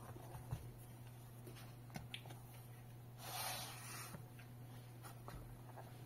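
Faint handling noise of a tablet in a folio case: a few small clicks and taps, and a brief rubbing swish about three seconds in as the cover is folded, over a low steady hum.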